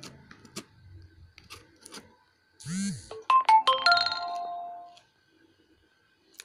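Light taps and scrapes of a cardboard parcel being handled. About two and a half seconds in, a short swoop is followed by a quick run of ringing electronic notes that hold and fade out for about two seconds, like a phone ringtone or notification jingle.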